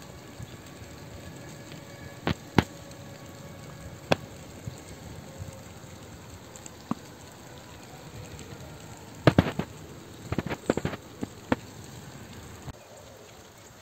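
Scattered sharp snaps and cracks, one every second or two, then a quick cluster of them about nine to eleven seconds in, over a faint steady background.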